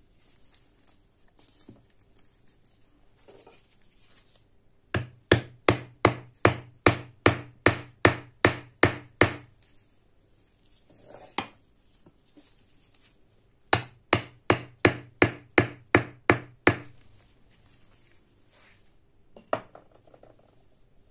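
Steel chipping hammer striking a nail in a wooden block: two runs of quick, even blows, about three or four a second, with a single blow between them and another near the end.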